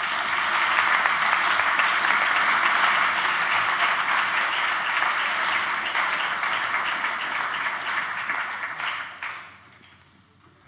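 Audience applauding, a dense steady clapping that dies away about nine seconds in.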